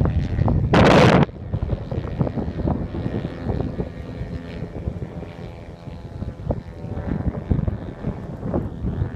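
Engine and 27x10 propeller of a 33% scale RC Piper Pawnee (JCV 120 engine) droning faintly and steadily as it flies high overhead. A loud gust of wind buffets the microphone for about the first second.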